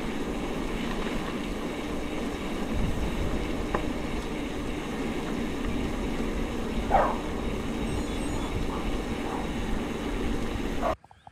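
Mountain bike riding down a dirt trail: a steady rushing noise of the ride with the bike rattling and a couple of sharp clicks, cutting off abruptly near the end.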